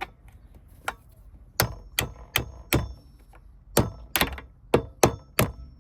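Sharp hard-plastic clicks as the console lid's toothed part is worked along its teeth. There are two single clicks, then from about one and a half seconds in a steady run of about three clicks a second.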